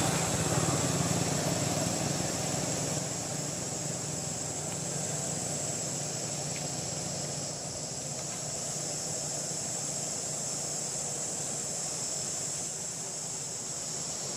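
Steady outdoor background noise: a low, even hum with a steady high-pitched hiss above it and no distinct events, such as animal calls.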